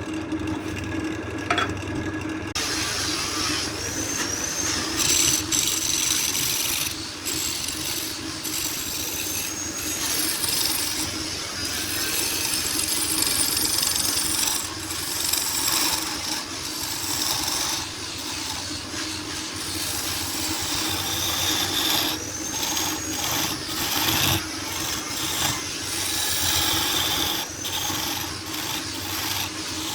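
Power tool working wood: a steady motor hum under continuous rough noise from the cut, with a few brief high whines.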